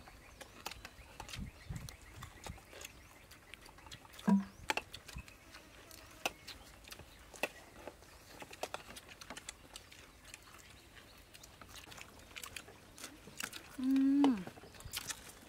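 People eating at a table: scattered chewing and lip-smacking clicks, with spoons tapping on china plates. A brief hummed "mm" comes about four seconds in, and a longer, louder one near the end.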